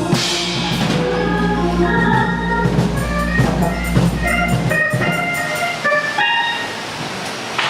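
Church band music with drums under held chords, and a deep bass note that stops about five seconds in.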